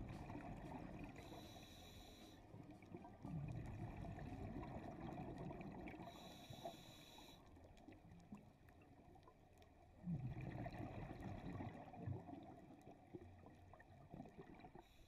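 Faint muffled underwater sound of a scuba diver breathing through a regulator: low bubbling rumbles from the exhaled bubbles, and two short hisses about five seconds apart.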